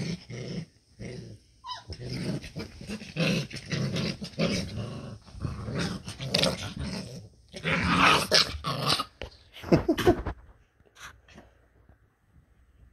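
Young puppies growling in repeated bursts as they play, dying away about ten seconds in.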